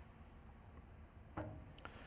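Near silence: room tone, with one faint short sound about one and a half seconds in.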